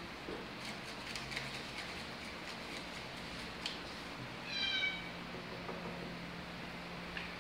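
Bengal cat giving one short, high meow about halfway through, with a few faint ticks and rustles before it.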